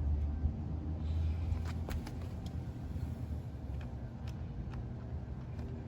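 A few faint, light clicks and taps as a plastic LED projector door light is fitted and pressed into its socket in a car door, over a steady low rumble.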